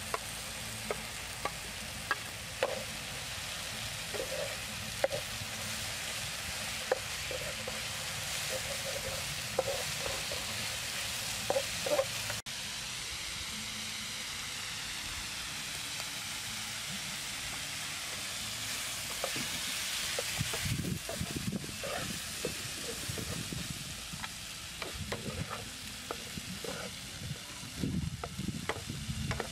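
Sliced water lily stems and minced pork sizzling in a frying pan, with a spatula clicking and scraping against the pan as they are stirred.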